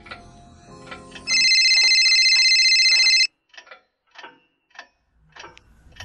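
An old telephone's bell rings once with a rapid, steady trill for about two seconds, starting just over a second in and cutting off suddenly. A clock ticks steadily throughout, and quiet low music stops as the ring begins.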